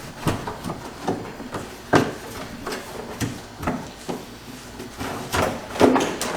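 Plastic cover panel being pulled and worked loose by hand: irregular clicks, knocks and scraping of plastic, with louder knocks about two seconds in and near the end.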